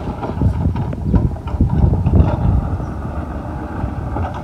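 Garbage truck driving off down the street, its diesel engine running under a rapid, irregular series of clanks and knocks from the rattling body and arm.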